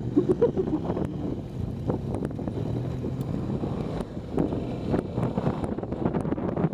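Suzuki V-Strom's V-twin engine running steadily off-road, with frequent knocks and clatter from the rough track, and wind on the microphone.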